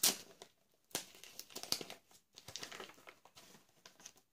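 Gift-wrapping paper crinkling and rustling in irregular bursts as it is worked open off a heavily taped present, the loudest crackle right at the start.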